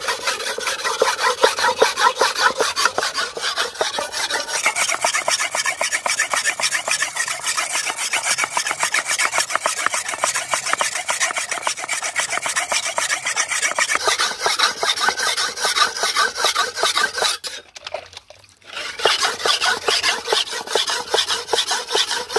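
Steel knife blade scraped quickly back and forth by hand on a wet whetstone in a fast, even rhythm, with a short break about four seconds before the end. The knife's edge is thick, so it is pressed down hard to grind the edge thinner.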